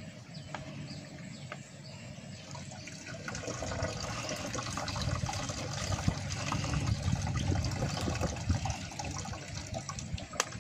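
Nipa palm sap being poured from a plastic bag into a plastic water bottle, trickling and growing louder a few seconds in.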